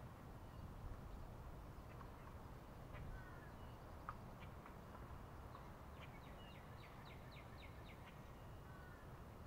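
Faint birdsong: scattered short, high chirps, then a quick run of about a dozen chirps around six to eight seconds in, over a low steady background rumble.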